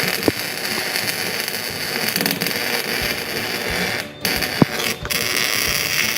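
Electric arc welder running, with a steady crackling hiss from the arc and a few sharp pops. The arc breaks off briefly about four seconds in and again about five seconds in, then strikes again.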